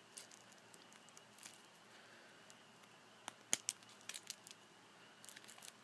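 Faint handling noises from squishy toys being picked up and put down: scattered small clicks and crinkles, the sharpest a little past halfway, with a few more near the end.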